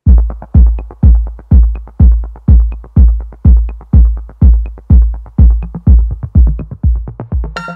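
Electronic dance music with a booming drum-machine kick about twice a second. A bright chiming hit lands near the end as the beat trails off.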